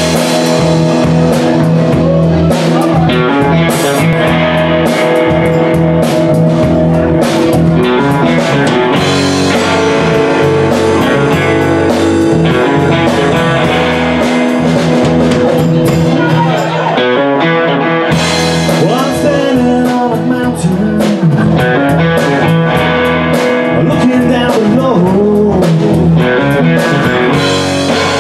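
Live amplified rock band playing: electric guitar, bass guitar and a Pearl drum kit, with steady drum hits under sustained guitar chords.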